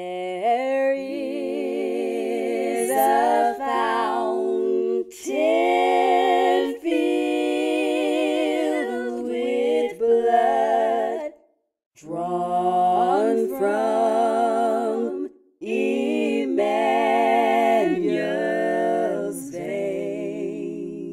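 A woman singing a hymn a cappella, with no instruments, holding long notes with vibrato and pausing briefly between lines.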